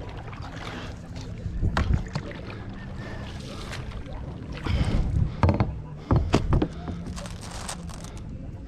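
A small boat being paddled on a pond: irregular paddle strokes and splashes, with sharp knocks, over a steady low rumble of water and wind.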